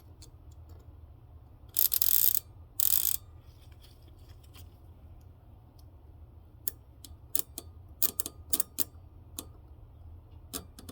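BMW fuel pump relay clicking as a 9-volt battery is touched to its terminals: a run of a dozen or so irregular sharp clicks in the second half, the sound of a relay still switching as a working one should. Earlier come two short rasping noises about a second apart.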